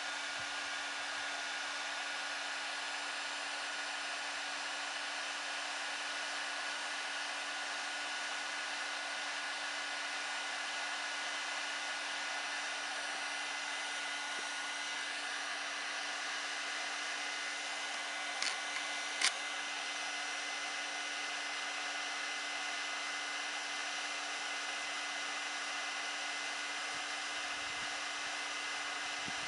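Worcraft WHG-22-60 2200 W heat gun running steadily, a constant blowing hiss with a steady hum from its fan motor. Two short clicks come a little past the middle.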